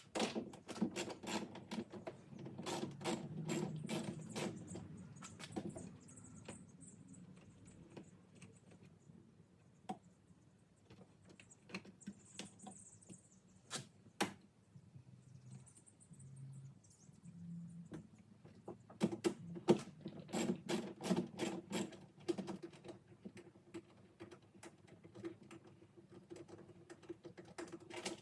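Quick runs of mechanical clicking in two spells, one near the start and one about twenty seconds in, with scattered single knocks between.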